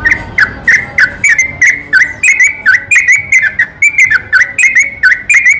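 Sooty-headed bulbul (trucukan) singing a long unbroken run of short whistled notes, about four a second, each dipping and rising in pitch. It is the rapid continuous ropel song style that bird keepers use as a lure.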